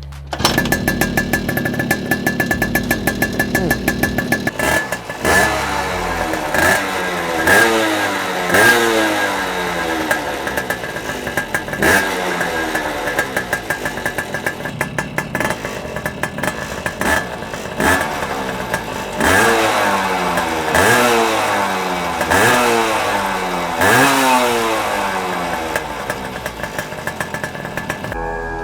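Puch Maxi moped's small two-stroke single-cylinder engine breathing through a Tecno Snake expansion exhaust, running at a steady fast beat, then revved again and again from about five seconds in, the pitch climbing and dropping back with each throttle blip, for a decibel sound test.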